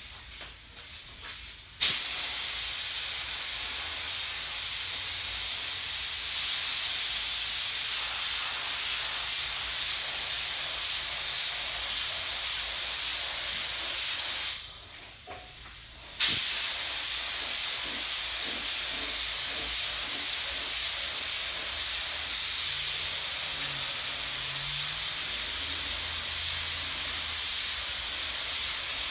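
Gravity-feed paint spray gun spraying red basecoat with compressed air: a steady hiss that starts abruptly about two seconds in, stops for a second or two past the middle, then starts again.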